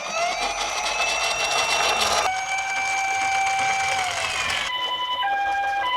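Electronic sirens of toy ambulance and police car minicars. First a wailing siren rises, holds steady and falls, over a rushing noise during the first two seconds. Then, from near the end, a two-tone hi-lo siren alternates about every 0.6 seconds, like a Japanese ambulance's.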